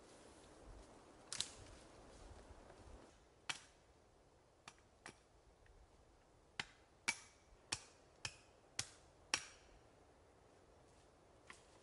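Faint rustle of a branch dragged through dry grass, then a series of sharp strikes as wood is chopped. The strikes are scattered at first, then come about two a second in a run of six.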